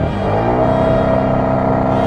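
ATV engine revving up over the first half second, then held steady at high revs as the quad churns through mud and water.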